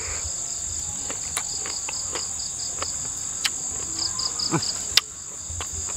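Steady high-pitched chorus of insects, with a second, pulsing chirp beneath it, and a few sharp clicks over the top.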